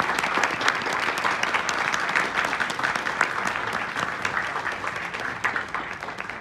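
Audience applauding, dense clapping that begins to fade near the end.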